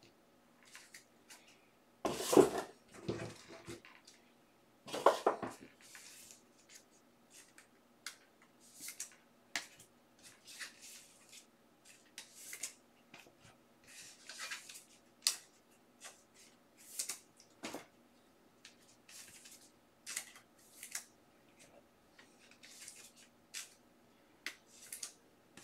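Hockey trading cards being handled and sleeved: an irregular string of short papery swishes and rustles as cards slide against each other and into plastic sleeves, with two louder bursts of handling about two and five seconds in.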